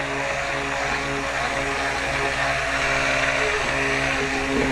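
Handheld stick blender running steadily in a jug of cold-process soap batter, mixing D-limonene into the used-cooking-oil and lye mixture at light trace. The motor gives an even, constant hum and cuts off abruptly at the end.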